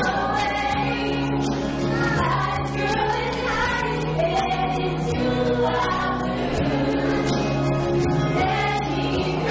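Several voices singing together over accompanying music with a steady beat, in a live stage song-and-dance number.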